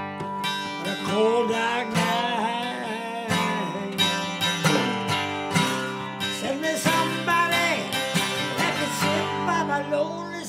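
Blues music on acoustic guitar: plucked notes under a melody line that bends and slides in pitch.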